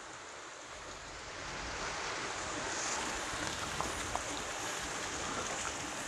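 Steady rushing background noise with a few faint ticks, growing slightly louder about two seconds in.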